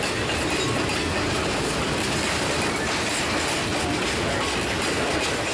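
Freight cars rolling past at close range: their steel wheels run on the rail in a steady, continuous clatter.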